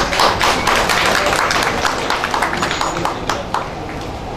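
Scattered applause from a small group, many irregular hand claps that thin out and stop about three and a half seconds in.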